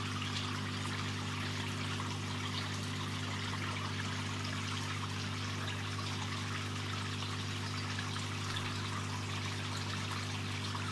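Water trickling steadily in a prawn-farm tank, over a steady low hum from the tank equipment.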